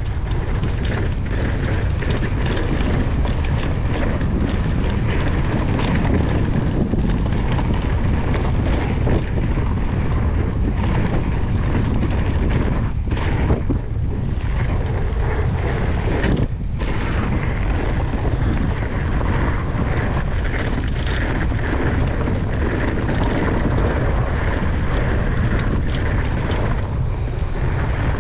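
Wind rushing over the microphone of a mountain bike speeding down a dirt trail, with tyre noise and many small knocks and rattles from the bike over bumps. It eases briefly twice near the middle.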